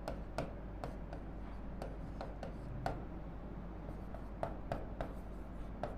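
Marker pen writing on a whiteboard: a string of short, faint, irregularly spaced scratches and taps as handwritten words are put down.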